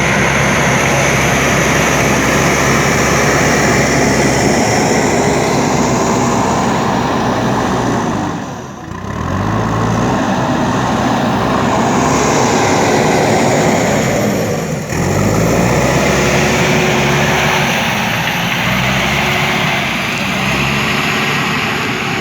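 JCB 3DX backhoe loader's diesel engine running hard under load. Twice, about nine and fifteen seconds in, the revs drop briefly and then climb back up.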